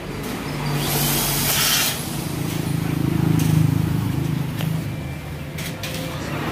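A handheld power drill runs for about a second on metal furring, then a low motor hum swells to a peak midway and fades.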